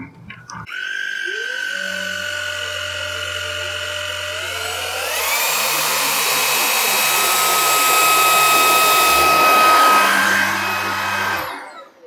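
Viomi A9 cordless handheld vacuum cleaner with its electric turbo brush, running over a fabric stool cover. The motor starts with a rising whine, and about five seconds in it steps up higher and louder as it is switched to turbo mode. Near the end it shuts off and winds down.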